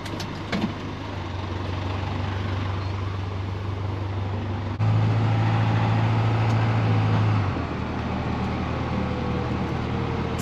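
Truck engine running steadily while driving. Its low drone gets suddenly louder about five seconds in and falls back a couple of seconds later.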